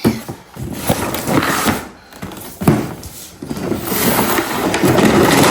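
Toy packaging being torn and handled open: irregular rustling, scraping and a few knocks, getting louder and busier near the end.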